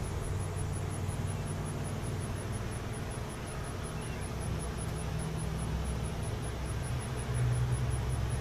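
Low, steady mechanical hum, swelling slightly near the end, with a faint high-pitched pulse repeating about five times a second.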